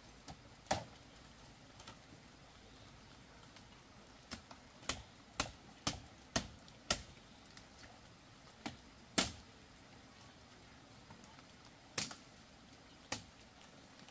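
A series of sharp knocks at irregular intervals, with a run of five about half a second apart in the middle; the loudest comes about two-thirds of the way through.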